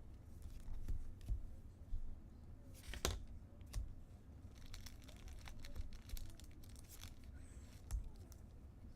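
A trading-card pack wrapper being torn open and crinkled, with a louder tear about three seconds in and scattered light clicks and rustles of the cards being handled.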